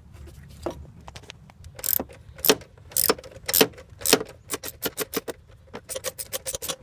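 A few sharp separate clicks and knocks, then a socket ratchet clicking quickly, about six clicks a second in short runs, as the coil pack's 7 mm bolt is driven back in.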